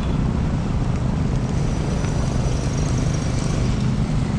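Steady vehicle and road noise, mostly a low rumble with an even hiss above it.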